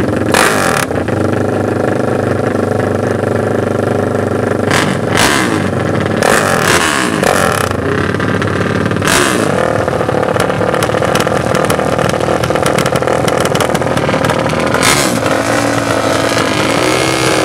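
Dirt bike engine running on the line, its throttle blipped a few times so the pitch rises and falls, with short loud bursts of revs.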